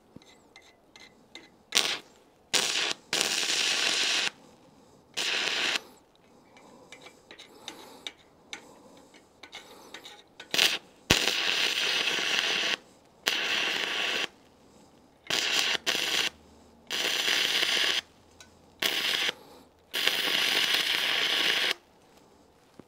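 Stick-welding arc from a 2.6 mm electrode on 3 mm steel, fed by three 12 V car batteries in series (36 V): a loud crackling hiss in repeated bursts, from a fraction of a second to about two seconds each, as the arc is struck, held and broken again. The arc is running hot.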